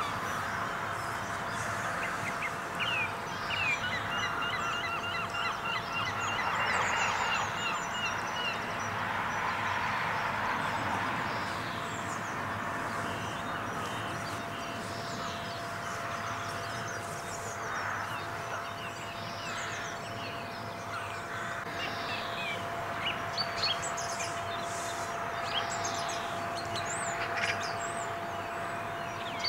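Waterbirds calling over a steady outdoor background, with rapid runs of short repeated calls early on and scattered chirps from smaller birds later. A faint steady hum runs underneath.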